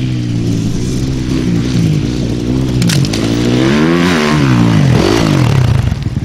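Dirt bike engines revving up and down as riders climb on an enduro course. The engine rises and falls in pitch repeatedly, with one bike revving hard and loudest as it passes close about four seconds in.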